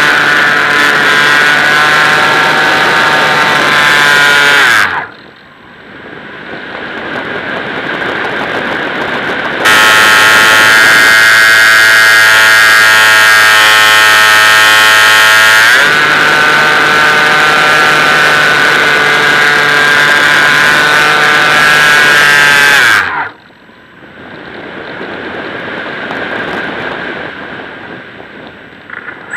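Model aeroplane motor and propeller running at a steady high pitch, heard from a camera mounted on the nose, with wind rush over the microphone. The motor cuts abruptly about five seconds in, leaving only a rising rush of air as the plane glides. It comes back on about ten seconds in, settles a little lower in pitch around sixteen seconds, and cuts again near twenty-three seconds for another glide.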